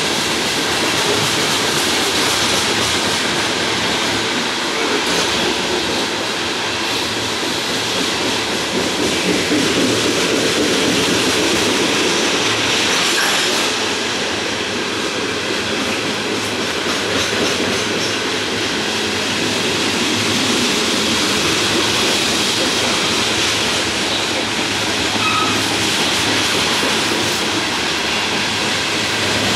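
Loaded coal cars of a long freight train rolling past, with a steady rumble of steel wheels on the rails.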